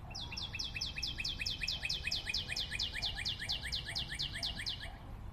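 A bird trilling: a fast, even run of short down-slurred chirps, about six a second, that stops about five seconds in.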